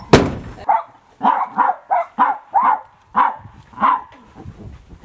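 Dog barking, a quick run of about eight barks, after a sharp bang right at the start.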